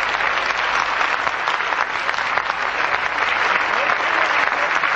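Audience applauding: dense, even clapping from many hands that holds steady throughout.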